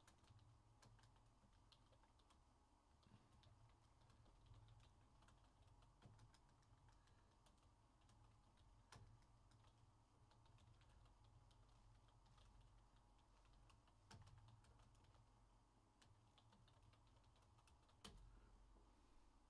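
Faint typing on a computer keyboard: scattered key clicks over a low hum.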